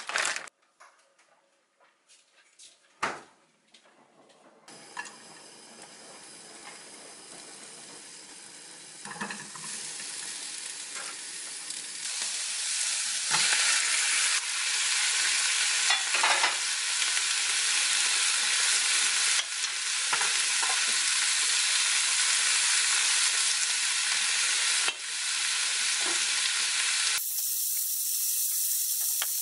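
Sliced onion and chicken-breast sundae (Korean sausage) frying in a nonstick pan on a gas stove, sizzling. The sizzle builds over the first ten seconds or so and then stays loud and steady, after a few sharp clicks at the start.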